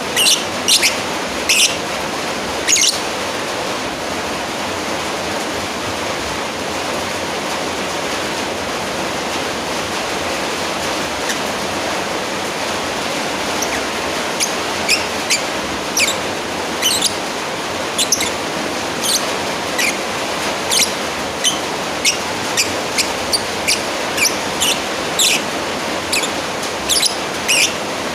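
Lovebird giving short, shrill chirps over a steady hiss, calling out to a rival. A few chirps come in the first seconds, then none for about ten seconds, then chirps come in quick runs through the second half.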